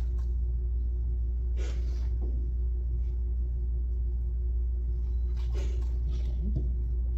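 A steady low rumble with a faint constant hum over it, unchanged throughout. Two brief soft noises come about two seconds in and again near six seconds.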